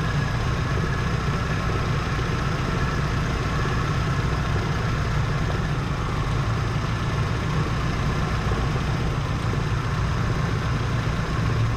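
1977 Chevy C10 engine idling steadily while running with a misfire.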